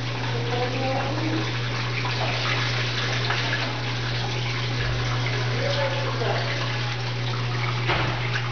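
Brastemp Ative 11 kg top-load washing machine running with water in the drum: water sloshing over a steady low motor hum.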